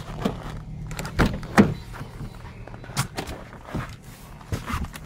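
Footsteps crunching in snow and the frost-covered door of a Nissan X-Trail being handled and opened, a series of sharp knocks and clunks, the loudest about one and a half seconds in. A steady low hum runs underneath.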